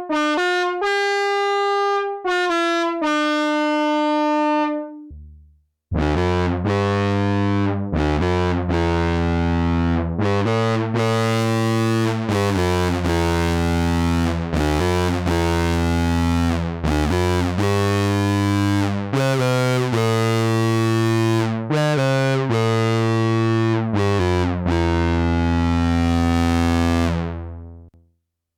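Behringer Odyssey analog synthesizer playing. A short melodic phrase in one patch fades out about five seconds in. After a brief gap, a low, harmonically rich bass patch plays a phrase of notes changing roughly once a second, then fades out near the end.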